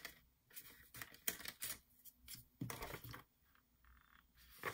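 Die-cut cardstock tags being popped out of a punch-out sheet by hand: several faint, irregular paper snaps and rustles.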